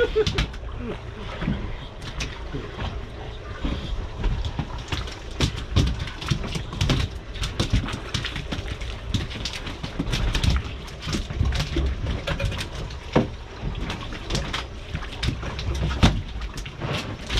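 Wind buffeting the microphone aboard a small fishing boat, over a steady low rumble, with frequent irregular knocks and clicks.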